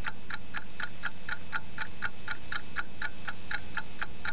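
A clock ticking fast and evenly, about four ticks a second.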